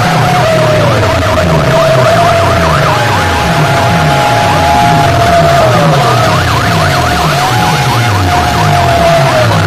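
Siren-style warbling and wailing sound effects over a pounding, pitch-dropping bass beat, played very loud through huge stacked DJ speaker boxes.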